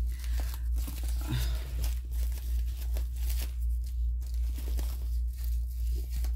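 Tissue paper and plastic wrapping being handled, rustling and crinkling with many short crackles as a small bag is unwrapped. A steady low hum runs underneath.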